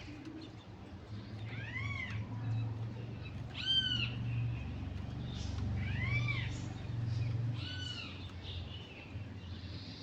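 Short arched animal calls, each rising then falling in pitch, repeated four times about two seconds apart over a steady low hum.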